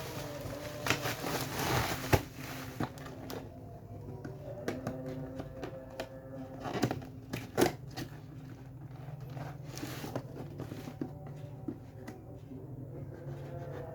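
Rustling and tearing of packaging with scattered clicks and knocks as a new Bosch angle grinder and its parts are unpacked and handled; the grinder's motor is not running.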